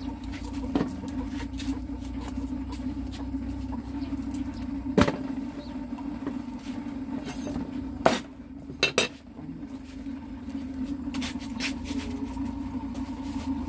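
Scattered knocks and clinks of cookware and utensils, the sharpest about five seconds in and a close pair just before nine seconds, over a steady low hum.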